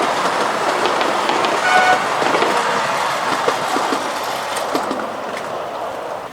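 7¼-inch gauge miniature railway train running on the track, gradually getting quieter, with a brief whistle toot about two seconds in and a few clicks from the wheels.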